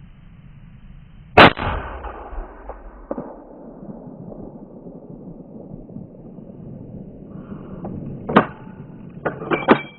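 A single loud, sharp bang about a second and a half in that rings out for about a second, a second bang near the end, and then a quick run of sharper cracks.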